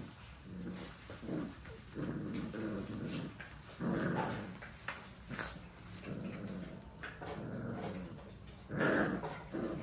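A litter of pit bull–type puppies play-fighting, growling in short, irregular bursts that are loudest about four seconds in and again near the end.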